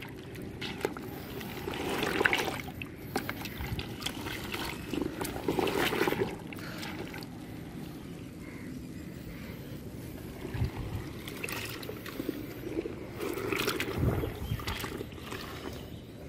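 A jute sack being squeezed and kneaded by hand in a bucket of cement slurry: irregular wet squelching and sloshing, with a couple of dull knocks.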